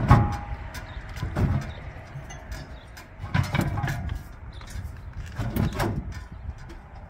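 Clunks and scrapes of the propane cylinders and their hold-down strap being handled in an RV's tank compartment, in four bursts over several seconds. The first, right at the start, is the loudest.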